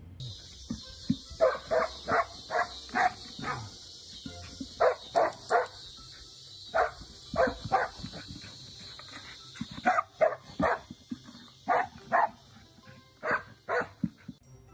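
A dog barking over and over in quick runs of short barks, over the steady hiss of water spraying from a garden hose.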